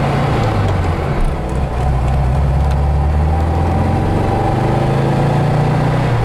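A 1963 VW Beetle's 1200cc air-cooled flat-four engine running, heard from inside the cabin while driving. About a second in the engine note drops and dips briefly with a gear change, then climbs steadily as the car pulls in gear.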